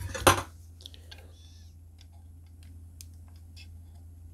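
Small clicks and taps of a diecast tanker truck model being handled and prodded at a stuck, glued-shut rear compartment, with a sharp knock just after the start. A steady low hum runs underneath.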